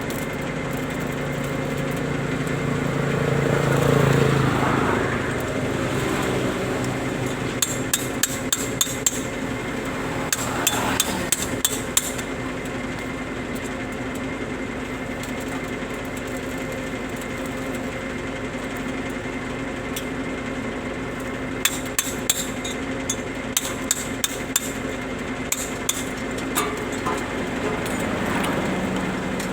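Hammer tapping on metal in three bursts of quick, light strikes, over a steady engine hum; a vehicle passes about four seconds in.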